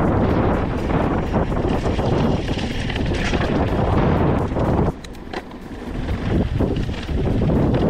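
Wind buffeting the microphone over the rumble and rattle of a hardtail mountain bike rolling fast over a bumpy dirt track. The noise drops briefly about five seconds in, then comes back.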